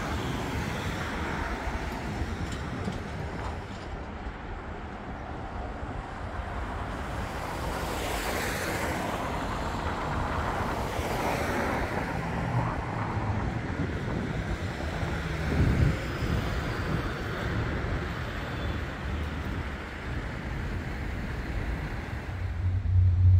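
Road traffic passing close by: cars going past in a steady stream, with a heavier low rumble of a larger vehicle midway through.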